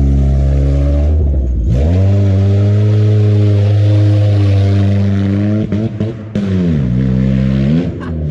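Honda Civic four-cylinder engine with a rod knock, revved hard: it climbs sharply about two seconds in and holds at high rpm for several seconds, drops off, then revs up again near the end.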